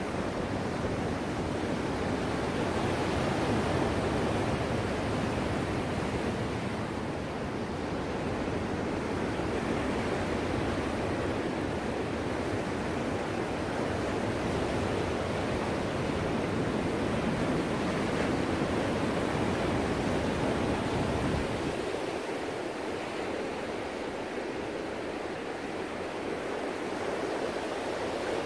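Ocean surf: waves breaking and washing in a steady rushing hiss. The deep rumble underneath drops away abruptly about three-quarters of the way through.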